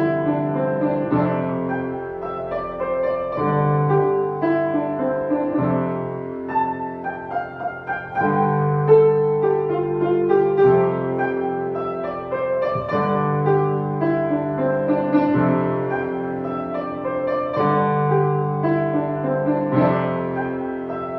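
Solo piano playing a pop-song arrangement: sustained chords over a bass note that changes about every second or two.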